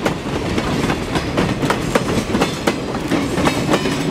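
Steel wheels of freight cars and a caboose clicking and knocking over the rail joints as the end of a train rolls past, several uneven clicks a second over a low rumble.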